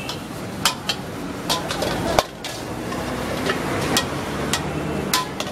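Metal ladle repeatedly knocking and scraping against a wok as fried rice is stirred and tossed, with a sharp clang about two seconds in, over a steady hiss of the gas burner and frying rice.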